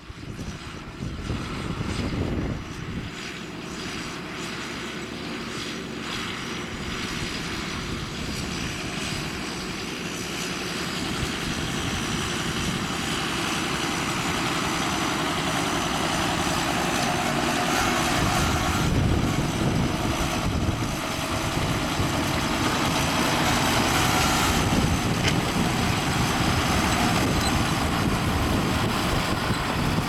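John Deere 6930 tractor's six-cylinder diesel engine working under load while pulling a reversible plough through the ground. It grows steadily louder through the first half as the tractor draws closer.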